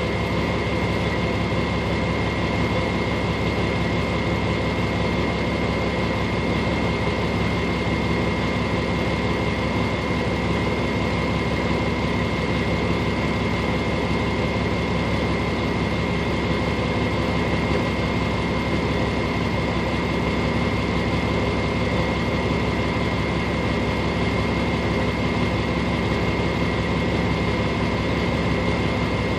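Vehicle engine idling steadily, heard from inside the cab, with a steady high-pitched whine over the low engine hum.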